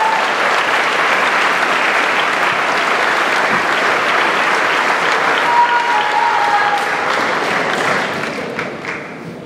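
Audience applauding, with a shout from the crowd about six seconds in; the clapping dies down near the end.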